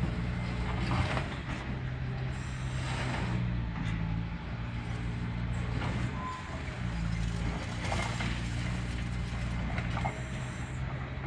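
Diesel engine of a demolition excavator running, its pitch stepping up and down as the hydraulics take load, with scattered knocks and crunches of rubble.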